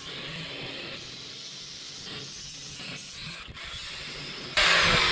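A low steady hiss, then about four and a half seconds in an angle grinder with a worn-down cutting disc cuts in suddenly and loudly, slicing into the rusty steel of a yacht's cockpit seat.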